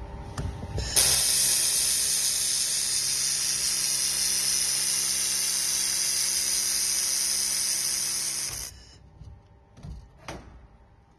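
1500 W handheld laser welder firing along an inside corner joint in 2 mm stainless steel: a loud, steady hiss that starts abruptly about a second in and cuts off abruptly about seven and a half seconds later, with a low steady hum of the machine underneath.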